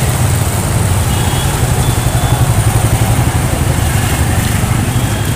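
A motor vehicle's engine running steadily nearby: a loud, continuous low rumble with a rapid flutter, over street noise.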